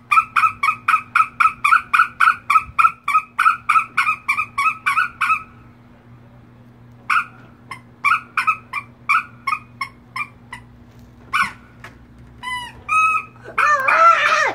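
A hand-squeezed squeaker being pumped rapidly, about three to four squeaks a second for several seconds, then after a pause more irregular squeaks. Near the end a pitched voice-like sound comes in.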